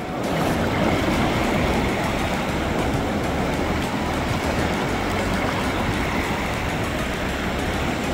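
Shallow surf washing in at a beach, with wind on the microphone adding a low rumble: a steady rushing noise.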